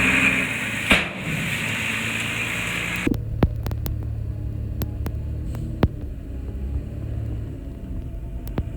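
Diesel engine of heavy earthmoving machinery running, loud and harsh for the first three seconds with one sharp knock about a second in. At about three seconds it changes abruptly to a lower, steadier hum with scattered sharp clicks and knocks.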